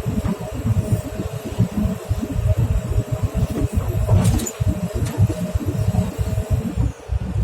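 Heavy diesel engine running with a low, uneven rumble and a steady hum, with a brief sharp clank about four seconds in.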